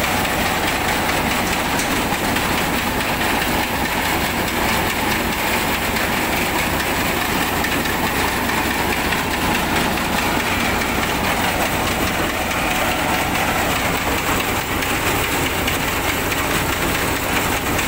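Multi-crop thresher running steadily while threshing paddy, its drum and blower fan making a loud, continuous, even machine noise with a constant low hum.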